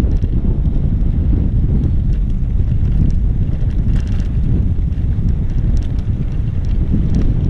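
Wind rumbling on the microphone during an e-bike ride on a dirt trail, with scattered light clicks and rattles.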